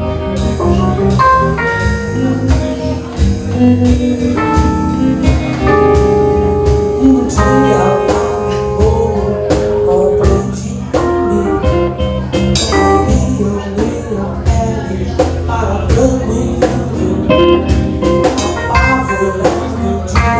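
Instrumental passage of a band song: lead guitar and other instruments playing held and moving melody notes over a steady bass line and a regular drum beat, with no vocals.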